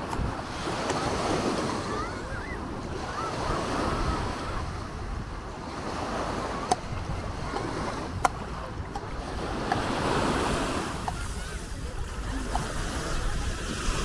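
Small waves washing onto a sandy shore, the surf noise swelling and fading every few seconds, with wind on the microphone and beachgoers' voices in the background. About halfway through, two sharp clicks a second and a half apart.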